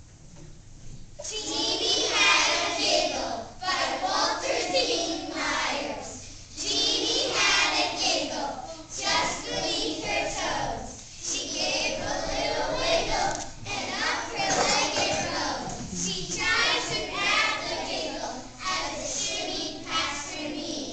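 A class of young children voicing a poem together in chorus, in short phrases with brief pauses between them. The voices start about a second in.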